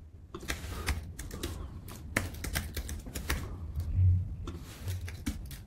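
Computer keyboard typing: irregular keystroke clicks while code is being edited, with one low thump about four seconds in.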